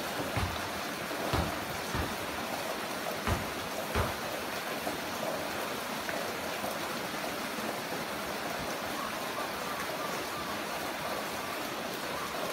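Heavy rain falling steadily, with a few louder drops landing with a dull thud in the first four seconds.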